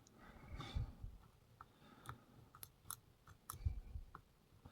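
Faint, scattered clicks and light scraping of a lock pick and tension wrench working inside a pin tumbler lock's keyway, feeling through the pins for a binding one.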